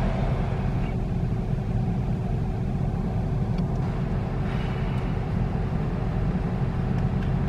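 Steady low rumble of a car heard from inside its cabin, with a faint steady hum running through it.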